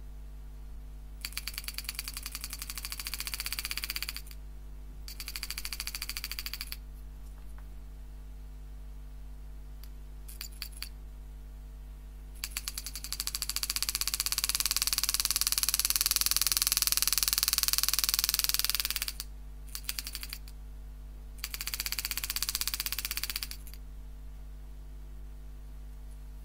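Homemade hand engraving machine hammering a 120-degree carbide graver through 304 stainless steel: rapid chattering strikes in six bursts, the longest about six seconds and the loudest, over a steady low hum.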